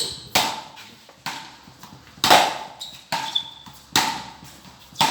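A road tennis rally: wooden paddles striking the bald tennis ball and the ball bouncing on the road, about six sharp knocks roughly a second apart, each with a short ring.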